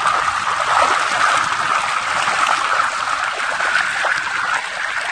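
Shallow, muddy river water rushing over stones and gravel, a steady running-water sound.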